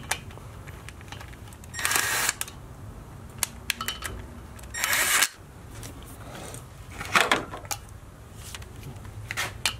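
Electric power tool running in short bursts, about half a second each, to snug down the bolts of a valve spring compressor tool on a Hemi cylinder head. The loudest burst comes about five seconds in and cuts off sharply. Sharp metallic clicks and clinks of tools and parts fall between the bursts.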